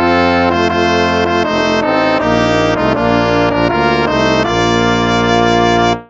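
Instrumental hymn music in brass tones: held chords moving from note to note over a steady bass, cutting off at the very end.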